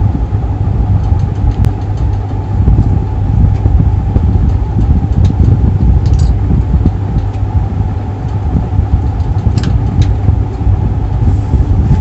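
A steady, loud low rumble of machinery or traffic in the background, with a few light clicks from hands handling wires.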